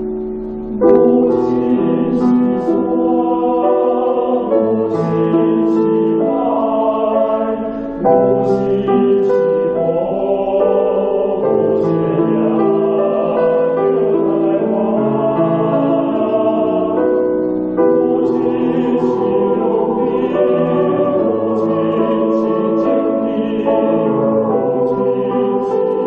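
Choral music: a choir singing held chords that change in blocks, loud throughout, swelling sharply about a second in and again near eight and eighteen seconds in.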